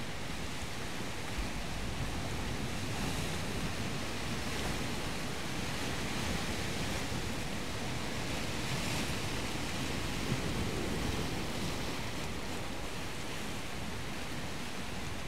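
Sea surf washing steadily, swelling every few seconds as waves break, with some wind on the microphone.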